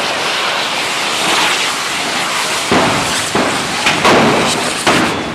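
Hand-held cordà firework canes (canyes) burning with a loud, continuous rushing hiss as they spray sparks, with several sharp bangs from about halfway in as fireworks explode.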